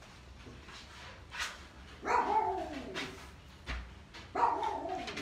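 Dog barking: two drawn-out barks that fall in pitch, one about two seconds in and another near the end.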